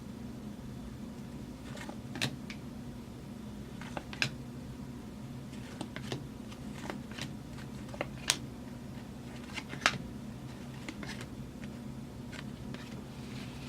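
Football trading cards being handled and flipped through, giving scattered sharp flicks and clicks, the sharpest two a little past halfway. A steady low hum runs underneath.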